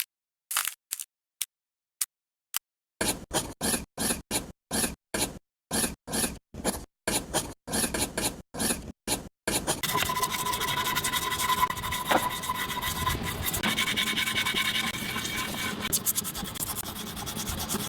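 Rhythmic scraping or rasping strokes, sparse at first and then about two to three a second. About ten seconds in they give way to a continuous scraping noise with a faint steady tone in it.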